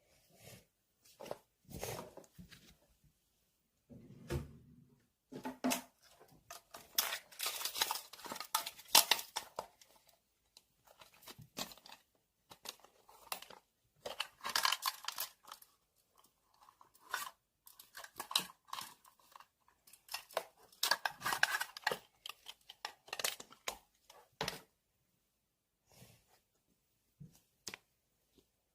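Irregular stretches of scratchy tearing and rustling handling noise, stopping and starting, loudest about nine seconds in, with a short low thump about four seconds in.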